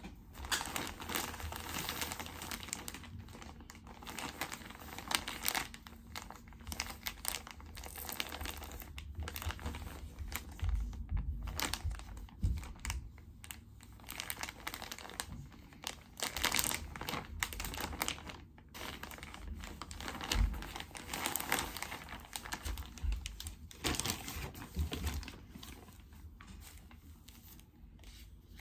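Plastic mailer bag crinkling in irregular bursts as it is handled and opened by hand.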